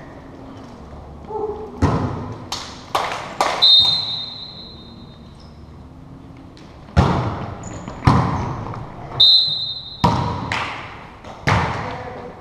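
Volleyball being played in a gym: a string of sharp, echoing hits of hands and forearms on the ball, about a dozen in all. A referee's whistle is blown twice, a longer blast about a third of the way in and a short one near three-quarters.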